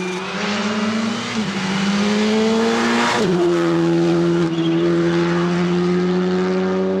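Rally car engine running at high revs. Its pitch climbs for about three seconds, drops sharply, then holds steady.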